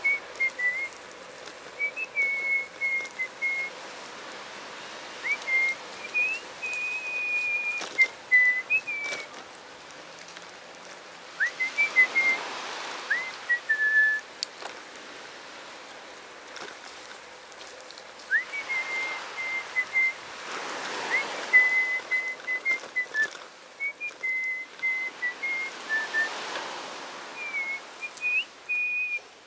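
A person whistling a tune: short held notes, some slid into from below, in phrases with pauses between them. Behind the whistling, a hiss swells and fades three times.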